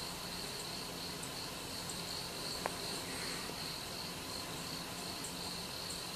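Insects chirping in a steady, high-pitched chorus, with a single sharp click about two and a half seconds in.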